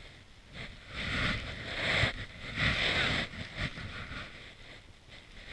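Powder snow crunching and a snowboard jacket rustling close to the camera microphone as a snowboarder struggles, stuck shoulder-deep in fresh snow, in uneven swells with a few dull thuds.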